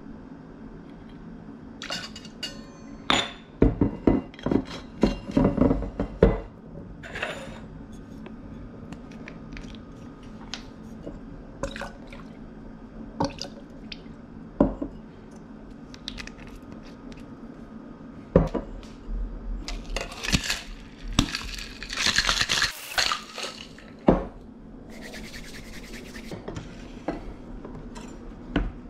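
Cocktail being mixed by hand: liquor poured from glass bottles into a steel jigger and mixing tin, with scattered clinks and knocks of glass and metal. A denser stretch of clattering comes about twenty seconds in.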